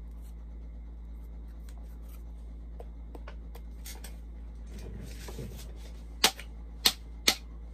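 Handling noise: three sharp clicks about half a second apart near the end as objects are picked up and put down, over a steady low hum.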